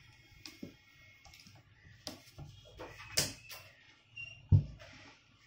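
A wooden home theater speaker cabinet being handled and turned over by hand: a scatter of light knocks and clicks against the box, a sharper click a little after three seconds, and a dull thud at about four and a half seconds.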